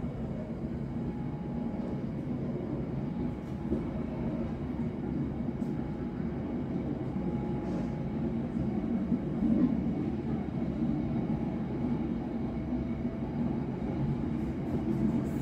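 Passenger train running along the track: the steady rumble of the carriages and wheels on the rails, heard from the rear of the train.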